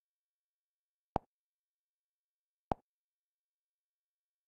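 Two short blip-like clicks of Kodi's menu navigation sound, about a second and a half apart, as items are selected in the interface.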